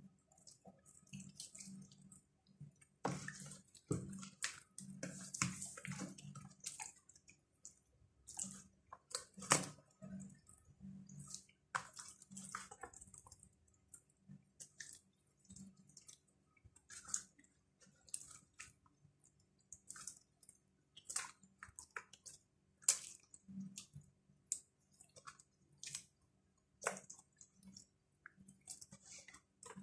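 Hands massaging baharat spice marinade into whole zubaidi (silver pomfret) in a plastic basin: faint wet squelches, slaps and drips of fish and sauce, coming irregularly.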